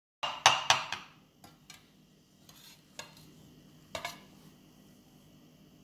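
Metal cake server clinking and scraping against a plate while a slice of pie is cut and lifted: a quick cluster of sharp clinks in the first second, then a few lighter taps, the last about four seconds in.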